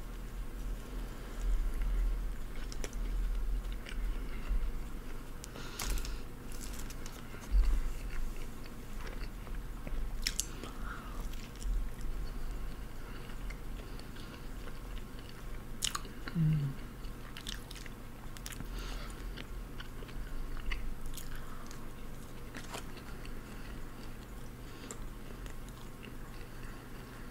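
A person biting into and chewing a fast-food sandwich, close-miked, with scattered sharp wet mouth clicks and soft low thuds.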